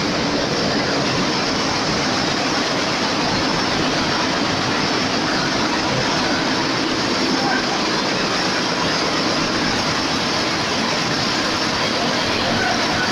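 Rows of large schiffli embroidery machines running together, a loud, steady, dense mechanical clatter that never lets up.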